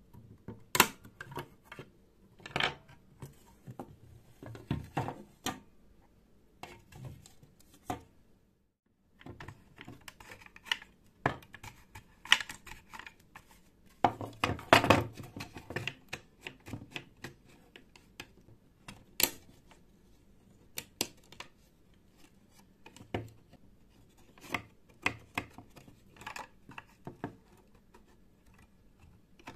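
Clicks, taps and scrapes of the hard plastic case and parts of a video cassette winder being pried apart with a screwdriver and a flat metal tool, with irregular sharp clicks and a run of louder scraping about halfway through.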